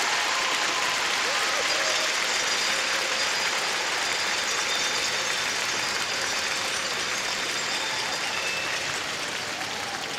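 Arena crowd applauding after a figure skating performance, a steady clapping with a few scattered cheers, fading slightly near the end.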